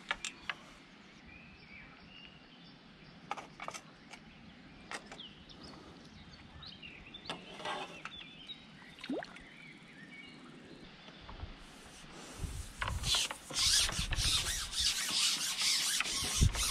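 Quiet outdoor background with a few light clicks. Then, from about twelve seconds in, loud rough rubbing and scraping as a carbon fishing pole is slid back over the grassy bank.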